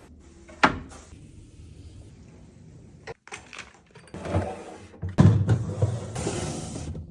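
Kitchen handling noises: a sharp knock a little after the start, then rubbing, scraping and clatter in uneven spells as things are moved and put away, the loudest stretch in the second half.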